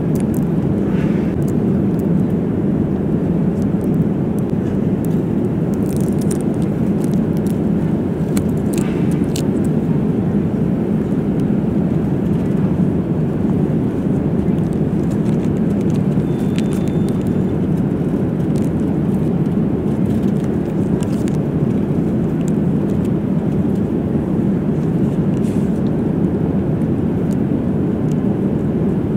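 Steady cabin noise of a Boeing 787-9 airliner in flight: an even, deep rush of air and engine noise. A few faint clicks and rustles come from an amenity kit pouch and its contents being handled.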